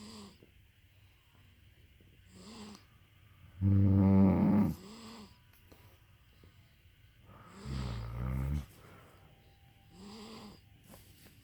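Two sleepers snoring together. There is a loud snore about four seconds in and a lower-pitched one about eight seconds in, with softer snoring breaths in between.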